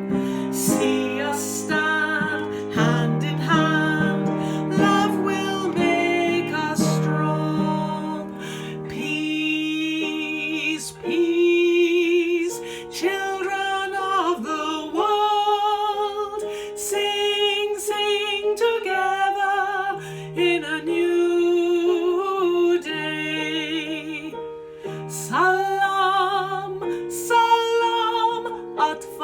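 A woman singing a slow melody over acoustic guitar accompaniment.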